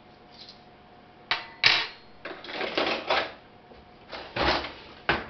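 Metal cutlery clattering as a kitchen drawer is rummaged for a fork, in a string of sharp knocks and rattles. The loudest comes about a second and a half in, and a second cluster follows near the end.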